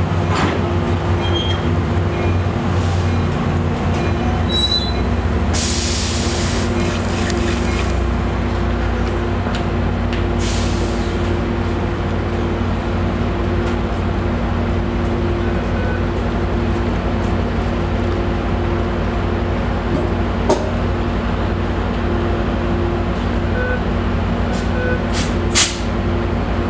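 Bilevel commuter train standing at a station platform with its equipment running: a steady low hum at a constant pitch. Sharp hisses of air are released about six seconds in, lasting about a second, again around ten seconds, and briefly near the end.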